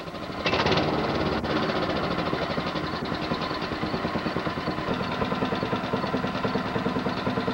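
Small engine of a six-wheeled amphibious ATV running with a steady, rapid pulsing beat; it comes in suddenly about half a second in.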